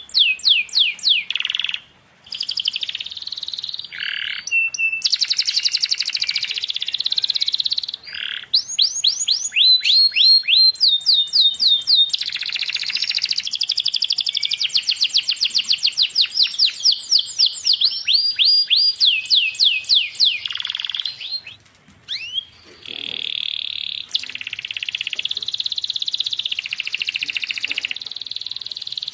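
Domestic canary singing a long, fast song: runs of quick rising whistled notes, several a second, alternating with buzzing rolled trills, with short breaks about two seconds in and again near twenty-two seconds.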